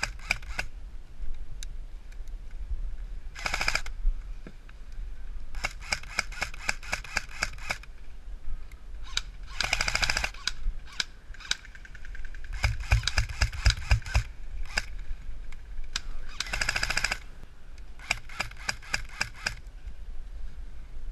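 Airsoft electric guns firing full-auto bursts of rapid shots: about seven short bursts a second or two apart, one a little past the middle heavier and louder than the rest.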